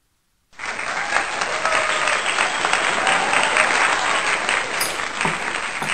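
Crowd applause that starts suddenly about half a second in.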